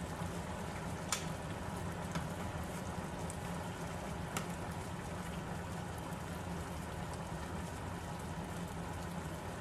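Chicken curry simmering in a pan on the stove, a steady bubbling sizzle, with a few faint clicks about one, two and four and a half seconds in.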